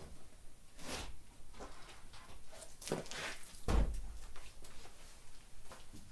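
Scattered knocks and scrapes from handling something, with one heavier low thump a little over halfway through.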